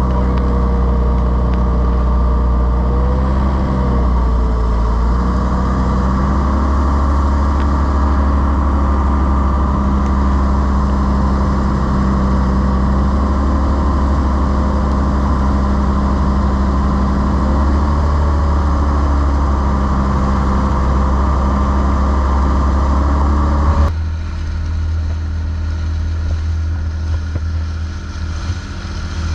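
Thai long-tail boat engine running steadily under way, its pitch shifting slightly a few times. About 24 seconds in the sound changes abruptly to a quieter, duller engine rumble.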